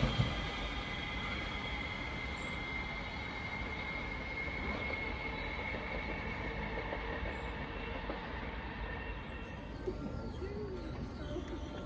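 Trains moving slowly over curved junction pointwork: wheels knock over the points at the start, then the train rumbles steadily with a thin, high wheel squeal. The sound drops to a quieter background near the end.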